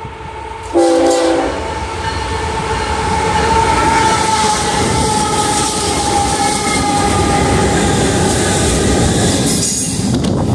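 BNSF freight train with diesel locomotives passing close by: a short horn blast about a second in, then the loud rumble of the locomotives and the rolling wheels of the stacked container cars going past, with a steady high whine over it.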